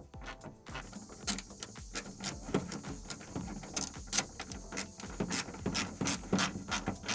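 Socket ratchet wrench clicking in repeated short runs while a 10mm bolt is driven into a J-clip to fasten a plastic wheel well liner.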